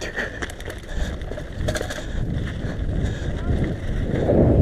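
Wind buffeting the GoPro camera's microphone and mountain-bike tyres rumbling on a dirt track while riding, growing louder toward the end, with a few clicks and rattles in the first two seconds.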